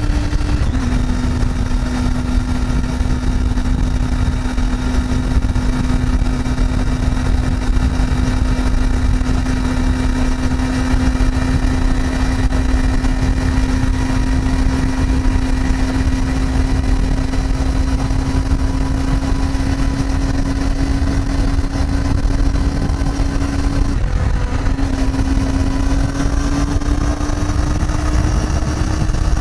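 Triumph Daytona 675R's three-cylinder engine cruising at a steady pitch, half buried under loud wind buffeting on the microphone. The engine note steps down once about a second in, breaks off briefly near the end, then climbs slowly as the bike accelerates.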